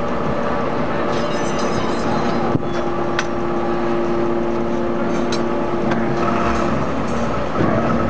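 Y81-3150 hydraulic metal baler running, its power unit giving a steady mechanical hum, with two sharp metallic clicks about two and a half and three seconds in. Near the end a deeper low note comes in.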